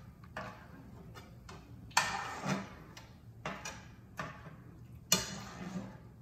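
Metal slotted spoon clicking and scraping in a frying pan of hot oil as fried onions are scooped out: a string of irregular light clicks, with two louder, longer scrapes about two seconds in and again near the end.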